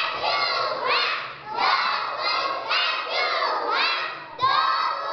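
A group of young children shouting together, many high voices overlapping with rising and falling pitch.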